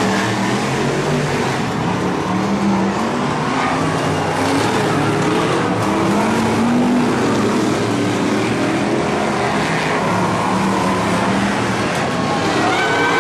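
Several BriSCA F1 stock cars' V8 engines racing past at full throttle: a loud, continuous blare of overlapping engine notes whose pitches rise and fall as cars accelerate and sweep by.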